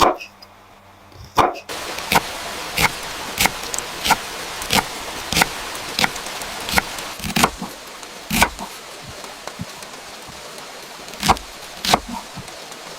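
Knife chopping on a cutting board in steady, even strokes, about three every two seconds, then slowing to a few separate chops near the end, over a steady hiss that starts about a second and a half in.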